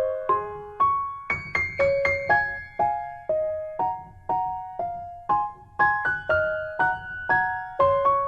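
Background music: a slow, gentle piano melody of single struck notes, about two a second, each ringing out and fading.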